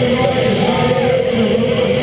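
Music playing over a steady hubbub of people in a large hall.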